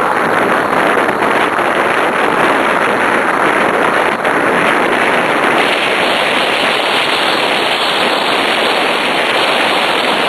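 Loud steady rushing noise of wind buffeting the microphone and the rig rolling along the path as two harnessed sled dogs pull it at speed.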